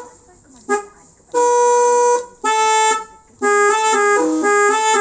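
Aftermarket telolet musical horn playing a tune: a short toot, two long held notes, then a run of quicker changing notes near the end.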